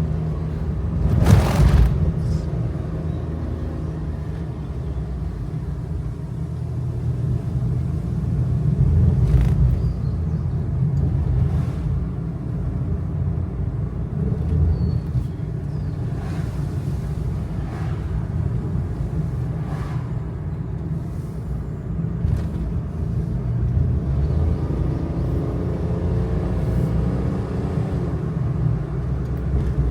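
Kei truck climbing a mountain road, heard from the cab: a steady low engine and road rumble with scattered knocks and rattles over bumps, and a loud knock about a second and a half in. The engine note rises a little near the end.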